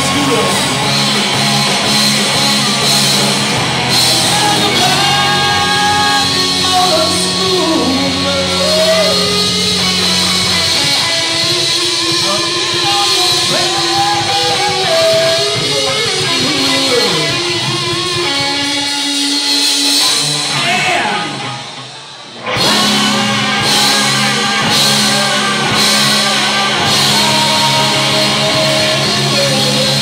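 Live rock band playing loud, with electric guitars, drums and singing in a large room. About two-thirds of the way through the band drops out briefly, then comes back in all together.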